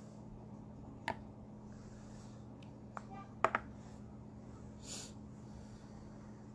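Small plastic clicks of a cosmetic tube and its brush-wand cap being handled: one about a second in, then three close together around three to three and a half seconds. A short sniff follows near five seconds, over a steady low hum.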